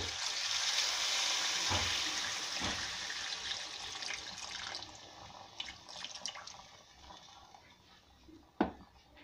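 Water poured into a kadai of frying chicken curry, a rushing splash that is loudest over the first few seconds and then fades. A single sharp knock comes near the end.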